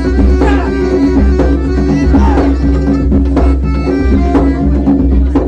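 Live traditional music accompanying a silat display: a wavering melody over a steady low drone, with regular hand-drum beats.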